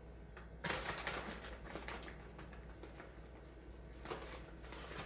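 Rustling and light crackling from handling ingredients, such as toppings or their packaging, in a quick patter that starts about a second in and comes again near the end.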